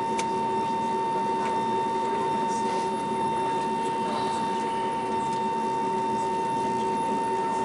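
Steady drone inside the cabin of a parked MD-88 airliner, with a constant high-pitched whine over a lower hum.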